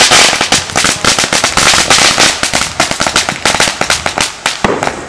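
Ground fountain firework spraying sparks: a loud, dense, rapid crackle over a steady hiss.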